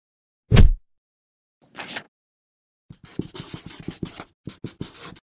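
A loud, short thump about half a second in and a brief swish near two seconds. Then a felt-tip marker scratches across paper in quick, separate strokes, writing words, for the last two seconds.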